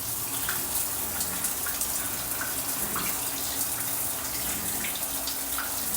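Water running steadily from a tap, a constant even hiss.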